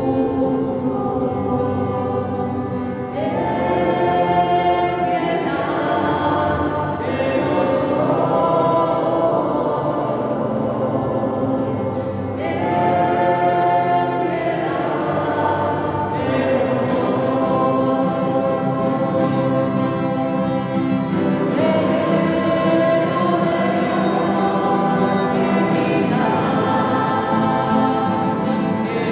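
A choir singing a slow church hymn, holding long notes in phrases a few seconds long.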